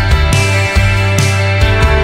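Background music in a rock style.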